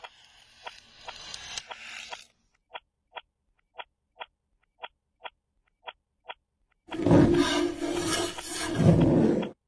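Clock ticking about twice a second, close to a security camera's microphone. A scraping noise swells over the first two seconds, and a much louder harsh rasping noise lasts about three seconds near the end; the narration takes these for boxes and objects being dragged around.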